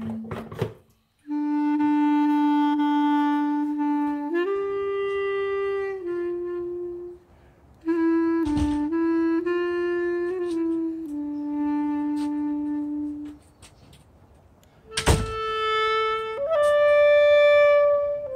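Music: a solo wind instrument playing a slow melody of long held notes, with short breaks between phrases.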